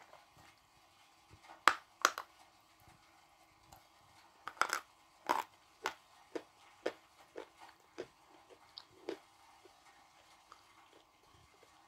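A piece of hard blue Uzbek edible clay bitten off and chewed close to the microphone: two sharp crunches about two seconds in, then a run of crunches about twice a second that grow fainter toward the end.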